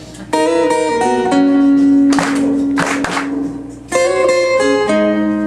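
Live acoustic band playing an instrumental passage with guitar, the notes changing every second or so. The audience claps along in short bursts, about two seconds in.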